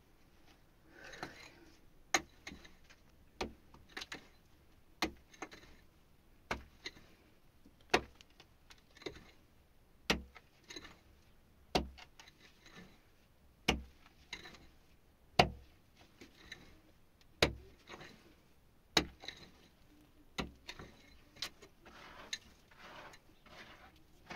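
A hand tool striking hard material over and over, one sharp blow every one to two seconds, with scraping noise between the blows.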